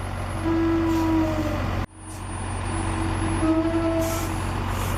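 Heavy logging truck's engine running under load, a steady low rumble with a drawn-out whine. The sound cuts out abruptly just under two seconds in and comes back.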